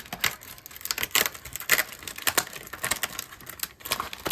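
Stiff paper packaging being opened and unfolded by hand: an irregular run of crisp clicks and crackles, a few a second.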